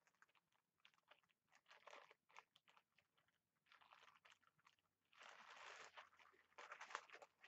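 Faint handling noise: scattered soft crackles and short rustles as lingerie and its packaging are handled.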